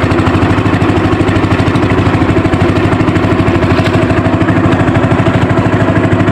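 Engine of a motorized outrigger fishing boat (bangka) running steadily under way, with a fast, even pulse.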